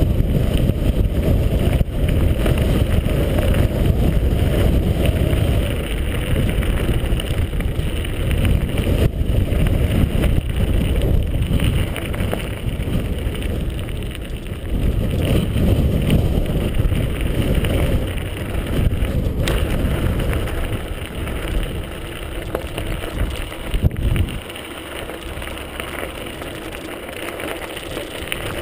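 Wind buffeting a GoPro HD's microphone on a mountain bike descending a gravel track, mixed with tyres crunching over the stones and the bike rattling over bumps. A sharp knock about 24 seconds in, after which the noise is quieter and lower.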